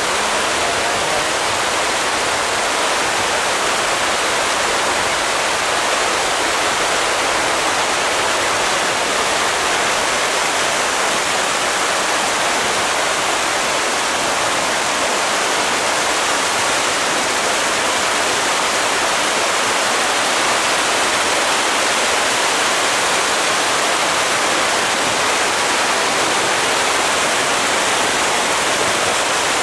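A dense mass of striped catfish (tra) thrashing at the pond surface in a feeding frenzy as pellet feed is thrown in: a steady, unbroken hiss of countless splashes.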